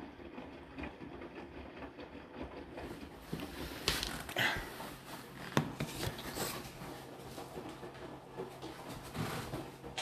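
Hotpoint NSWR843C 8 kg front-loading washing machine on a 40 °C mixed main wash: the drum turning with a steady motor hum while wet laundry and water swish inside, with a few louder swishes in the middle and near the end.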